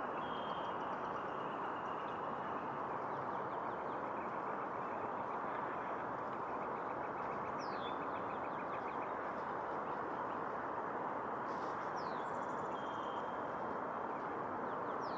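Steady outdoor rushing noise with birds calling over it: a few short chirps, a rapid trill a few seconds in, and several quick falling whistles.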